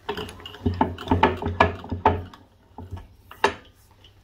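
Bench vise being wound shut onto a threaded lathe cross-slide screw: a quick run of metallic clicks and clunks from the turning vise handle and screw, then one sharp clack about three and a half seconds in.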